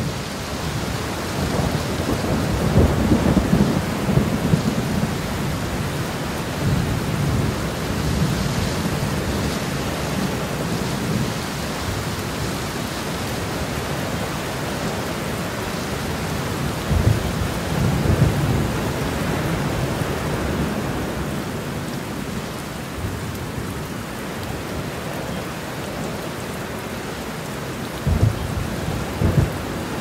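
Steady rain with rolling thunder: low rumbles of thunder swell a few seconds in and again about halfway through, and two sharper claps come near the end.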